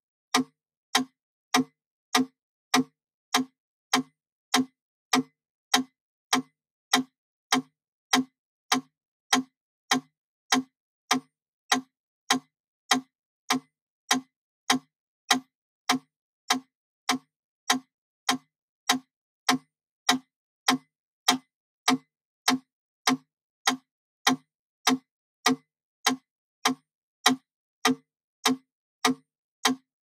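Wooden mechanical pendulum metronome ticking steadily at 100 beats per minute, one sharp woody click about every 0.6 seconds.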